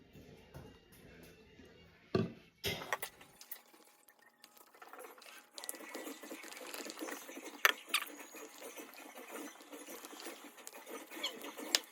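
Glue and slime activator being stirred in a bowl: a wet, sticky swirling and scraping, with a few sharp clicks against the bowl. The mixture is still runny glue that is not yet turning into slime.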